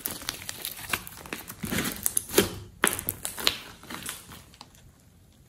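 Glossy slime with clay mixed in being squeezed and stretched by hand: a run of sticky crackles, pops and squelches that fall quiet for about the last second.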